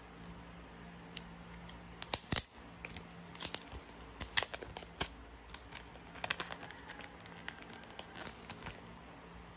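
Thin clear plastic sleeve crinkling and crackling as a photocard is worked out of it, a run of sharp clicks and rustles, loudest about two seconds in.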